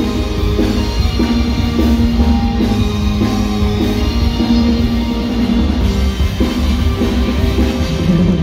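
Live circus band music, loud and steady: a drum kit and a keyboard playing held notes over a heavy bass.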